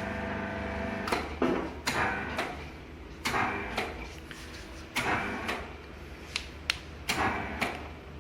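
CNC plastic-pipe butt welding machine's hydraulic drive closing the clamps after the pause is released. A steady machine hum fades after about two to three seconds, and a dozen or so sharp mechanical clicks and knocks come at uneven intervals.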